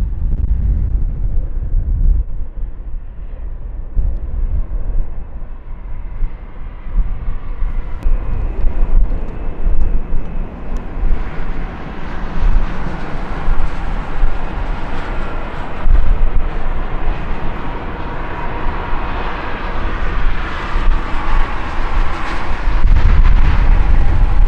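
Wind buffeting the microphone, then jet engines of a Boeing 787-8 on its takeoff run, a whining roar that builds steadily from about halfway through.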